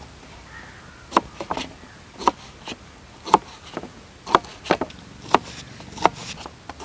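Kitchen knife chopping peeled raw banana into small dice on a plastic cutting board: sharp knocks of the blade hitting the board about once a second, several followed closely by a lighter second knock.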